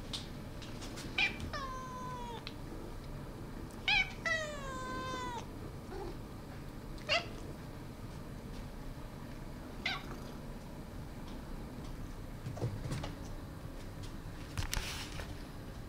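Domestic cat meowing twice, two drawn-out meows that each fall in pitch, about a second and a half in and about four seconds in, with a few brief sharp sounds scattered through.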